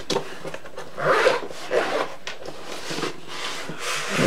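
Zipper of a soft marker case being pulled open around its edge in about five short pulls.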